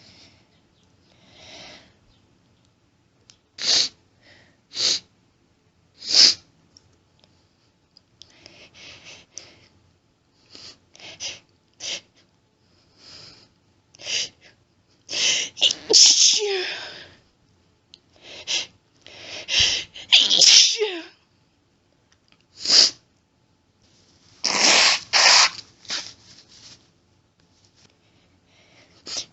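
A woman sneezing over and over in an allergy fit, some sneezes single and some in quick groups, with quieter sniffles and hitching breaths between them.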